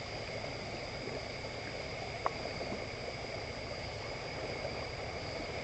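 Steady insect chorus holding two constant high pitches, over the even rush of the fast-flowing, flooding river, with one small click about two seconds in.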